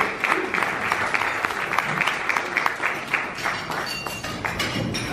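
Small audience of guests applauding, the clapping thinning out and dying down over the last second or two.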